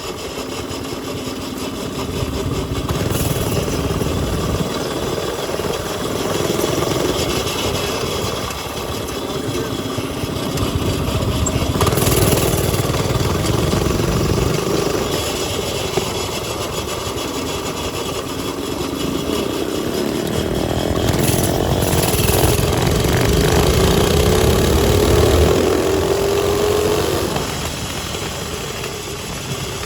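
Small single-cylinder mini bike engines running and revving, growing louder and fading again about three times, with the pitch climbing steadily as one accelerates near the end.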